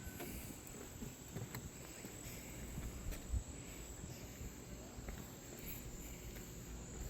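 Outdoor ambience with insects chirring steadily at a high pitch, and a few faint knocks.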